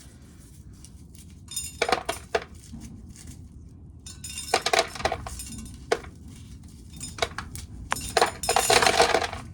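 Dry corn kernels rattling and clinking as corn is shelled, in bursts of many sharp clicks about two seconds in, around five seconds, and loudest from about eight to nine seconds. Wind rumbles on the microphone throughout.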